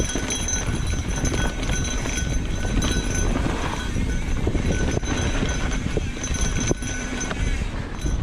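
Mountain bike rolling over a rough dirt and rock trail: a steady low rumble with constant small rattles, clatters and knocks from the bike.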